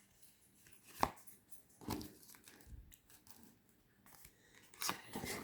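Oracle cards being shuffled and handled by hand: a sharp tap about a second in, then scattered light taps and slides of the cards, busier near the end.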